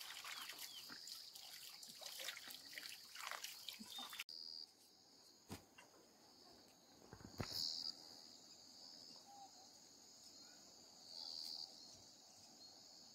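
Faint water splashing and trickling in a metal pot for about four seconds. Then, after an abrupt cut, a steady high-pitched insect drone that swells louder three times, with a couple of soft clicks.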